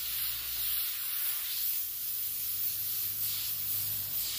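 Airbrush spraying paint: a steady high hiss of air, with a faint low hum underneath.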